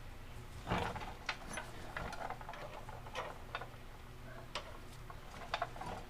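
Irregular light metallic clicks and taps as the new inner tie rod is handled and threaded back onto the steering rack by hand, about a dozen in all, the loudest about a second in.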